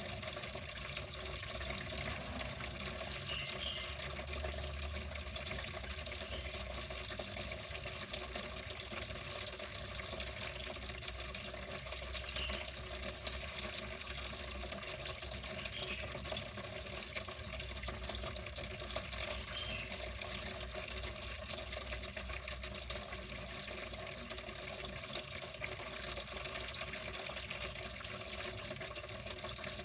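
Water running steadily, a continuous splashing flow with small brief splashes here and there.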